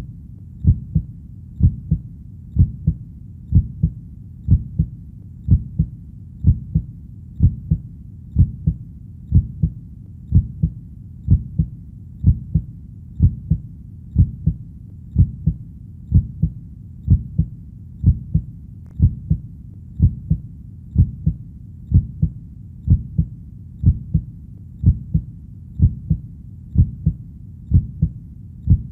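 Heartbeat: steady, deep double thumps (lub-dub), about one beat a second, over a soft low background between beats.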